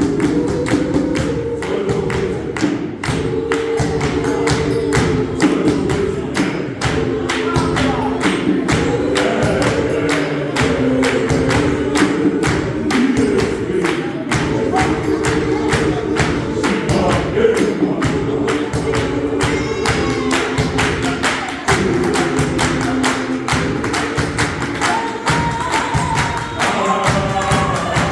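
Gospel choir singing in close harmony, kept in time by a dense, steady beat of hand claps and foot stamps in the clap-and-tap style. Higher voices join near the end.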